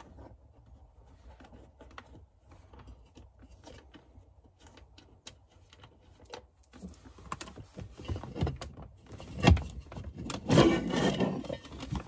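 Light clicks and taps of hands working on the plastic blower-motor housing under the dash, growing busier in the second half with a sharp knock. Near the end, about a second of plastic scraping and rattling as the blower motor and its squirrel-cage fan are lowered out of the housing.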